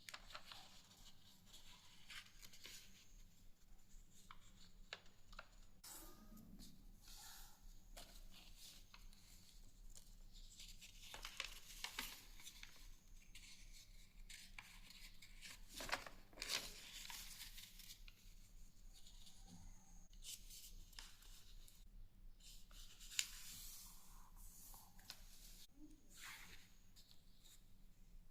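A sheet of paper being handled and folded by hand: quiet rustling and crinkling, with a few sharper creasing strokes as folds are pressed flat.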